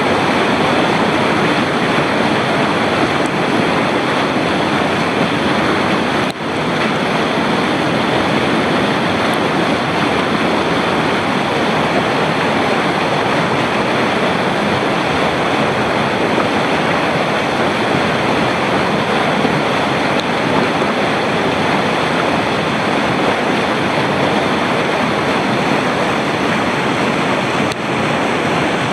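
Heavy whitewater rapids rushing in a loud, steady wash of noise, with two momentary dips, about six seconds in and near the end.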